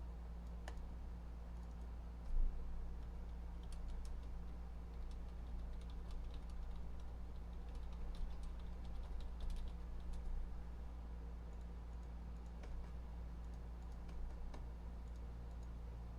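Scattered typing and clicks on a computer keyboard, densest in the middle, over a steady low hum, with a dull low bump about two seconds in.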